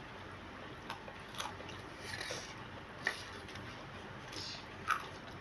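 A person chewing and biting food, with scattered mouth clicks and a few brief crunches.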